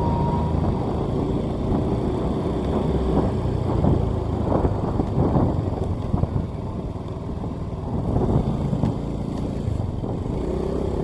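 Vehicle driving on a road: steady engine rumble and road noise, with a few short knocks and rattles from bumps about halfway through.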